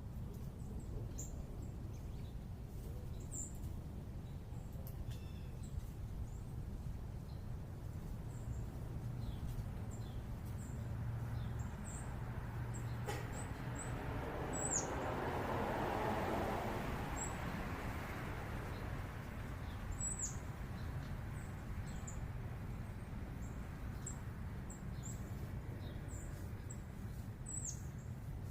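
Small birds giving short, high chirps and chip notes scattered throughout, over a steady low urban hum. A broad rushing noise swells and fades about halfway through.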